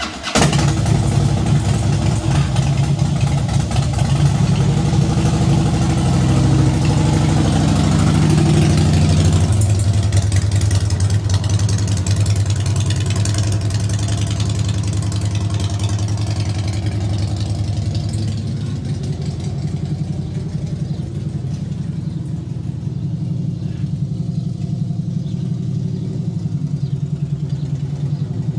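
Harley-Davidson V-twin motorcycle engine catching at the very start, then running. Its note climbs for a few seconds, drops to a lower steady note near ten seconds as the bike pulls away, and grows somewhat quieter as it rides off.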